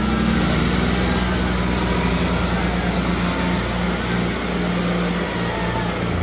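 John Deere 5310 tractor diesel engine running steadily, a low, even engine note.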